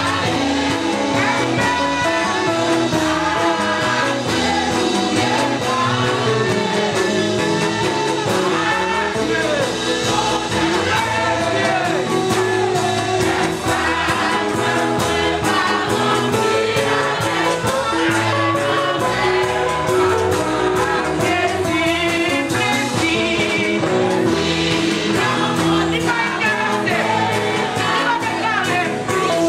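A women's group singing a gospel worship song together, with instrumental accompaniment.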